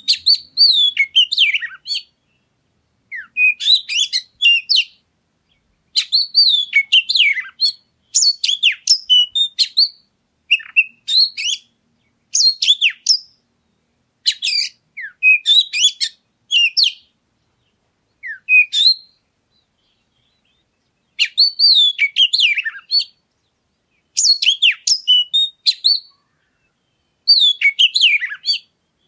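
Oriental magpie-robin (kacer) singing loudly: about a dozen varied phrases of fast whistles and trills, each a second or two long, separated by short pauses, with a longer pause about two-thirds of the way through.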